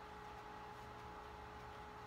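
Faint steady background hiss with a low hum and a thin steady tone running under it: room tone, with no distinct sound event.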